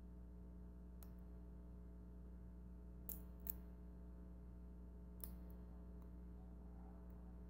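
A few sharp clicks and snaps of cooked crab-leg shell being cracked and picked apart by hand, the loudest about three and a half seconds in, over a steady low hum.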